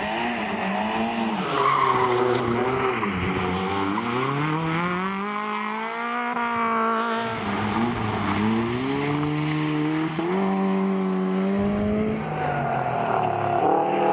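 Small rally hatchbacks' petrol engines revving hard, the pitch climbing and falling again and again as they are driven flat out round a tight course on ice and snow, with one long climb and fall in the middle.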